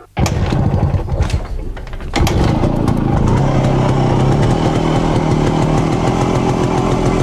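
Motorcycle engine sound effect starting up, uneven for about two seconds, then running steadily.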